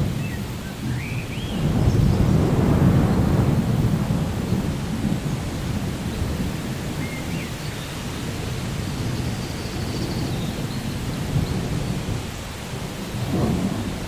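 Steady rain with rolling thunder. A long low rumble swells about two seconds in and slowly fades, and a shorter rumble comes near the end.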